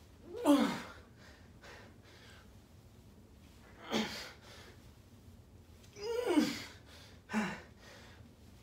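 A man's strained, voiced grunts and gasping exhales, about four of them spaced a couple of seconds apart, each falling in pitch. They are the effort of grinding out the final Romanian deadlift reps to failure.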